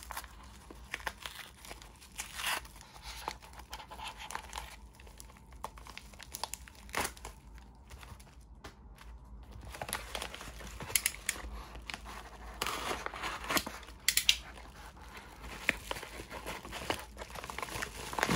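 Mail packages being opened by hand: packaging tearing and crinkling, with scattered short rustles and taps of handling. The handling is busiest about ten seconds in, after a brief lull.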